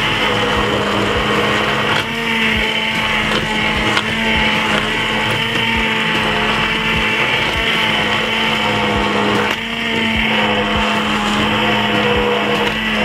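Handheld stick blender running steadily, its motor whirring as the blade purées a pot of thick potato soup.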